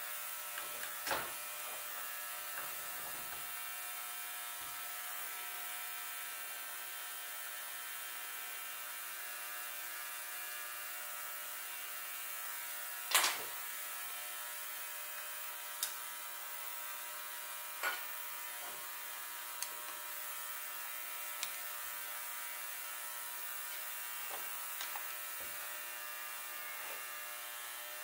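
A steady electrical hum and buzz, with scattered light metallic clicks and clinks as a screwdriver and carburetor parts are handled on a workbench. The sharpest knock comes about halfway through.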